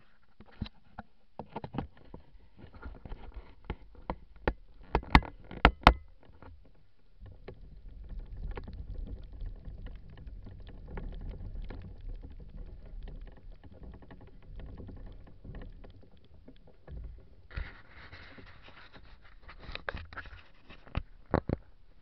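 Knocks and scrapes of a small action camera being handled on its shoulder mount, the loudest a few sharp knocks about five seconds in. Then a low rumbling on the microphone, with a few more knocks near the end.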